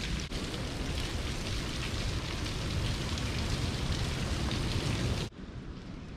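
Waterfall: a steady rush of falling water that cuts off abruptly about five seconds in, leaving a much quieter sound.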